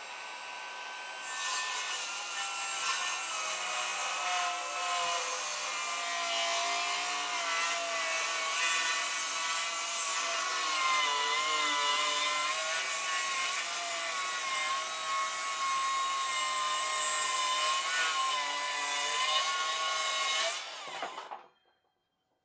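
Bosch GKS 185-LI cordless brushless circular saw with a Bosch Expert for Wood blade ripping a wooden beam lengthwise at full cutting depth. The motor is already spinning as the blade bites into the wood about a second in. It cuts steadily for about nineteen seconds, the motor pitch wavering under load, then lifts out and winds down near the end.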